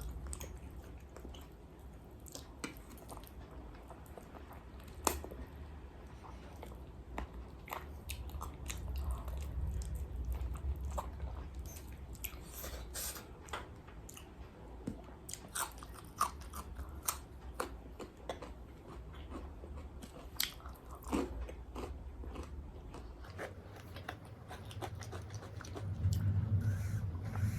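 Close-miked chewing and crunching of a mouthful of KFC-style fried chicken, with scattered sharp mouth clicks. A steady low hum runs underneath.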